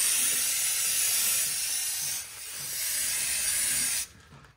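Aerosol brake cleaner spraying in a long hiss, with a short break about two seconds in, then cutting off near the end.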